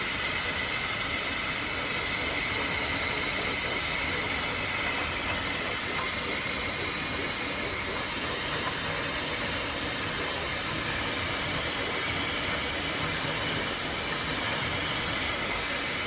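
Bambu Lab P1P 3D printer running a print: a steady fan hiss with a faint, constant high whine.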